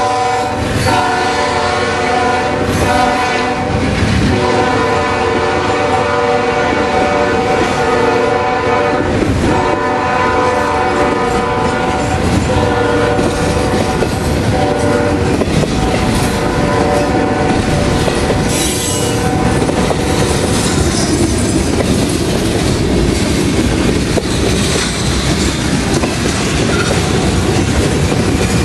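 Union Pacific 7772's Nathan K5HL five-chime air horn sounding in several long blasts, then falling silent about twelve seconds in. After it stops, the freight cars roll past with steady wheel clatter and some brief wheel squeal.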